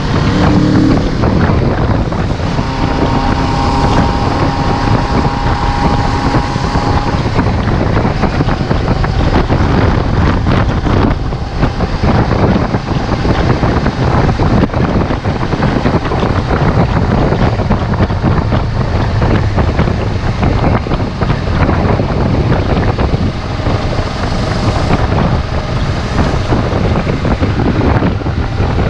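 2017 Kawasaki Z650's parallel-twin engine with its stock exhaust running steadily as the bike rides along, heavily mixed with wind noise on the microphone.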